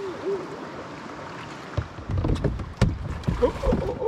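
Canoe hull knocking and scraping on river rocks as it comes in to land at the shore, a run of knocks and low thuds through the second half.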